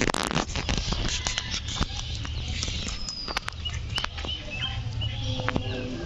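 Alexandrine parakeet cracking sunflower seeds taken from a hand: a scatter of sharp, irregular clicks as the husks split. A few short high chirps come about halfway through.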